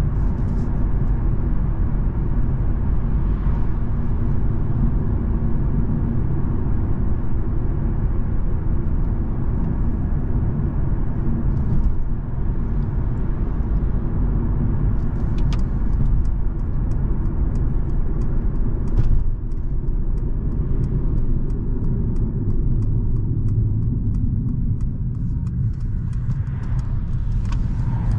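A 2024 Mercedes-Benz C220d on the move, heard from inside the cabin: a steady low rumble of tyre, road and engine noise from its four-cylinder diesel.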